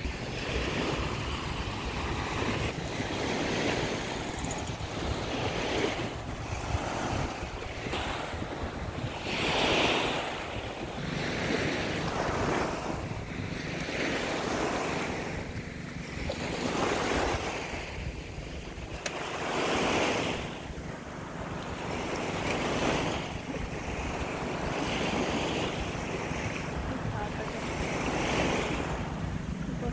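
Small waves washing up onto a sandy beach, one swell every two or three seconds, with a steady rumble of wind on the microphone underneath.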